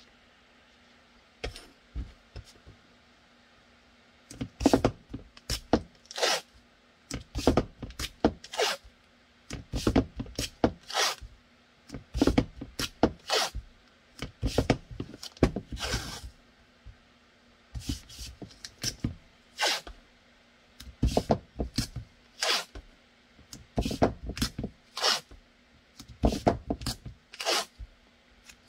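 Blue painter's tape being pulled off the roll and pressed around a pistol mold, in short irregular rips and rustles with a longer pull about halfway through.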